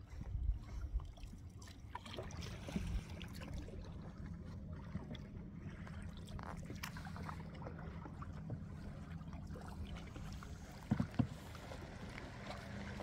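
Canoe being paddled on open lake water: paddle strokes with water trickling and splashing off the blade, over a steady low rumble, and two sharp knocks about eleven seconds in.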